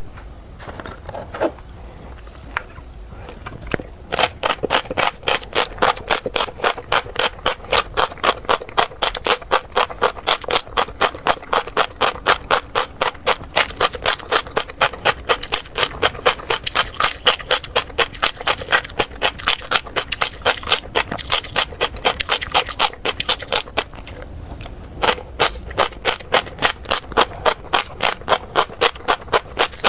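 Close-miked chewing of crunchy tobiko (flying fish roe): sharp crackling clicks in a steady rhythm of about three to four a second. After a few scattered clicks it settles into the chewing rhythm about four seconds in, pauses briefly near the end, then resumes.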